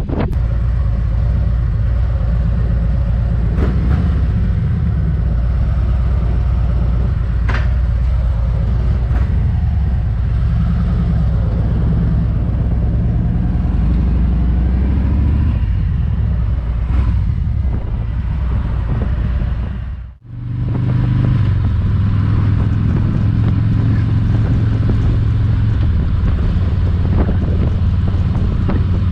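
Harley-Davidson motorcycle engine running while riding, its low pitch shifting as the speed changes. The sound drops out sharply for a moment about two-thirds of the way through, then the engine sound resumes.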